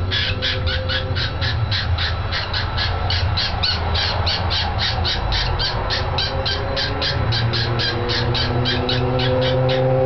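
Cockatiel screeching in a fast, even run of short harsh calls, about four or five a second, a banshee-like racket.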